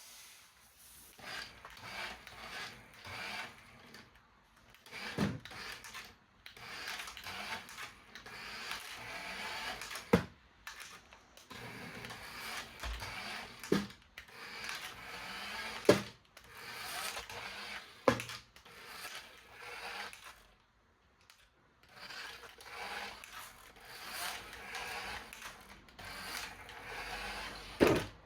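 Hands unboxing a toy: packaging and plastic parts rubbing and rustling, with about half a dozen sharp clacks as pieces are set down or knocked together.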